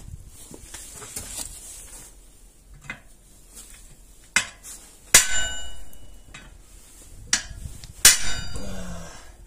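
Hammer blows on a dented motorcycle wheel rim braced on a wooden block in a vise, struck to straighten the dent. About four strikes in the second half, the two heaviest leaving the metal ringing for a moment afterwards.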